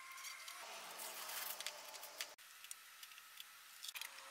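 Faint handling noise from a clear plastic jug being turned and fitted on cardboard: light rustling with small plastic clicks and taps. The sound drops away abruptly about halfway through, leaving only scattered clicks.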